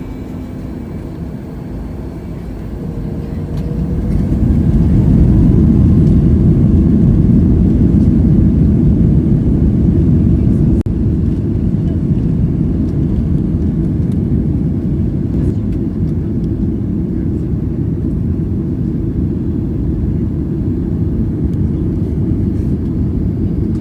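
Boeing 737 MAX-8 jet engines heard from inside the cabin: a low, steady rumble that builds over the first few seconds to a loud, even level, as thrust comes up for the takeoff roll.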